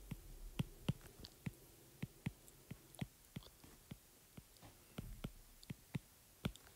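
Stylus tip tapping and tracing on a tablet's glass screen while handwriting: a string of faint, irregular clicks, about three a second.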